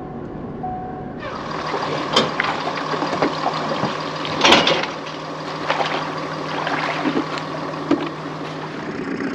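A vehicle's cabin hum for about a second, then the open-air noise of a small aluminium boat being launched off its trailer into the water. Under it runs a steady hum, with a few sharp knocks; the loudest comes about four and a half seconds in.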